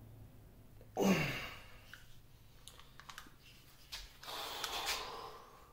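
Hand-tool work on a cast-iron lathe carriage. There is a sharp knock about a second in, then scattered light clicks and about a second of rattling near the end, as a ratcheting screwdriver turns a screw.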